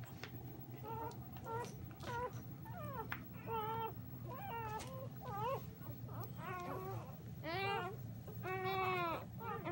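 Newborn German shepherd puppies whining and squealing in short, high-pitched cries, about two a second, growing louder in the last few seconds.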